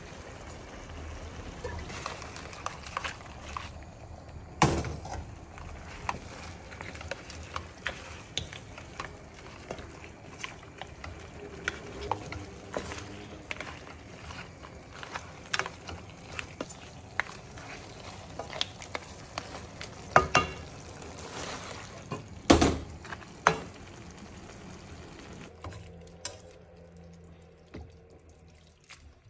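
Spaghetti and lobster in sauce being stirred and tossed in an aluminium pan with a wooden spoon: wet clicks and scrapes over a steady sizzle, with a few louder knocks of the spoon against the pan. The sizzle dies down near the end.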